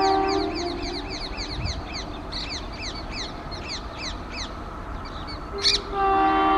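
A bird calling in quick, repeated downward chirps, about four a second. An electric locomotive's multi-tone horn fades out at the start and sounds again near the end, just after a short sharp noise.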